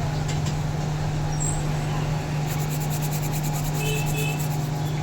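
Steady hum and rushing air of an electric room air cooler's fan running. About halfway in, a faint, fast, even scratching joins in.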